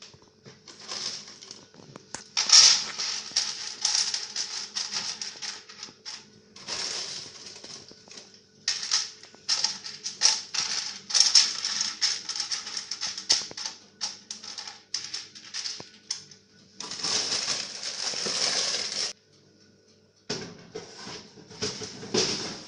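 Cacao beans rattling and clicking against a tray as they are stirred and spread by hand, in irregular spells of a few seconds with short pauses, over a faint steady electrical hum.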